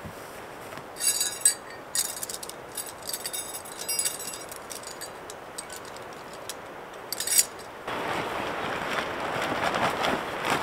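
Light metallic clinks and jingles of camping gear being handled, in short clusters during the first half and once more around seven seconds in. From about eight seconds in, a steadier, louder rustle of fabric as a sleeping bag is pulled out of a nylon stuff sack.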